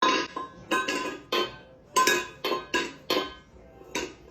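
A food bowl being knocked about, clanging about nine times in an irregular rhythm, each knock ringing briefly before the next.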